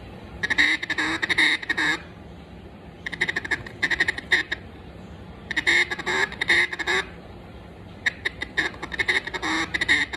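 Duck call with a Bois d'Arc (Osage orange) wood insert blown in four runs of quick quacks, each about a second and a half long, with short pauses between them. The call is being test-blown while its insert is tuned.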